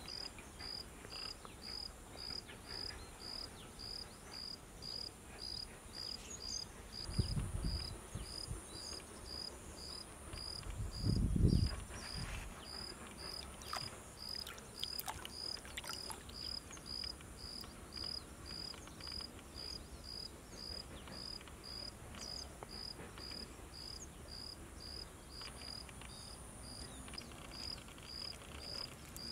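A cricket chirping steadily, about two chirps a second, over a faint high insect hum. Two dull low thumps come about seven and eleven seconds in, with a few light clicks after them.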